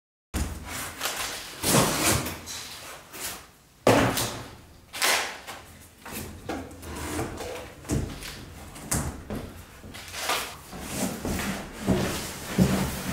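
Wooden slats of a motorcycle shipping crate being handled and pulled free: irregular wooden knocks and scraping, with a sharp knock about four seconds in. Near the end, a large cardboard carton scrapes and rustles as it is lifted.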